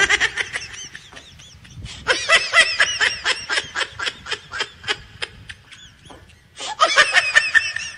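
High-pitched giggling laughter in quick rhythmic pulses, in three bouts: a short one at the start, a longer run from about two seconds in that trails off, and another burst near the end.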